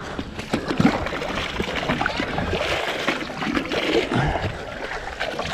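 Water splashing and trickling in a boat's live-bait tank of mullet as its water is changed, with many small knocks.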